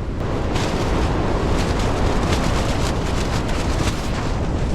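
Strong gusting wind battering a backpacking tent, heard from inside: a constant low rumble with rapid cracks of flapping tent fabric, picking up about half a second in.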